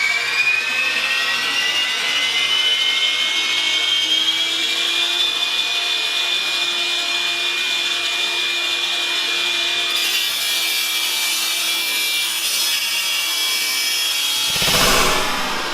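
Bosch Reaxx table saw spinning up with a rising whine, then running steadily at speed. A short, loud burst of noise comes near the end.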